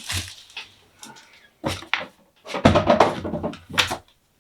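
Packaging and parts of a boxed security camera being handled: a few clicks and knocks, then a longer clatter and rustle about two and a half seconds in, and a sharp knock near the end.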